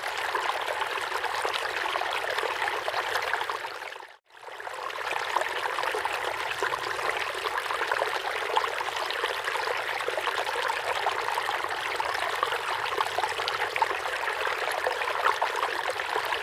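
River water flowing, a steady rushing and trickling. About four seconds in it briefly drops out almost to silence, then fades back in.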